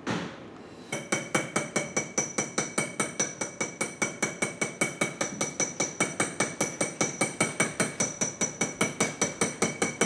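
Small hammer tapping a perloir (rivet-beading punch) to round the cut end of a rivet and set a metal plate onto leather. A single tap comes first, then about a second in a long, even run of quick taps, about five a second, each with a metallic ring.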